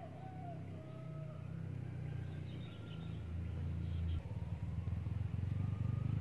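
A vehicle's engine running steadily and growing louder as it draws nearer, with a low pulsing hum.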